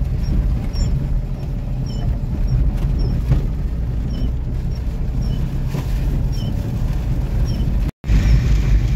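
Car engine running with tyres on a slippery, muddy dirt road: a steady low rumble with faint high chirps about twice a second. The sound cuts out for an instant near the end.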